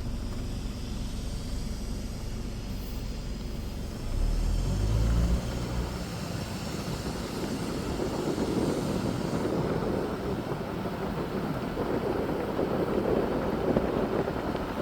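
Car driving on the road, heard from inside the cabin: a steady engine and tyre rumble, with a deeper surge about four seconds in and rougher road noise building through the second half.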